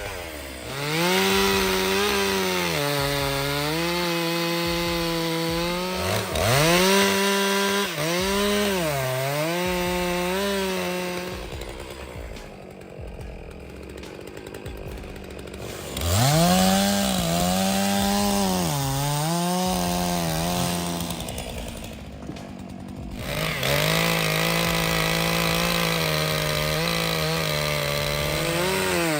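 Stihl MS 661 C two-stroke chainsaw cutting wood. Its engine pitch rises and sags over and over as the chain loads up in the cut. It eases off to a lower, quieter note about twelve seconds in and briefly again about twenty-two seconds in, then goes back to full throttle.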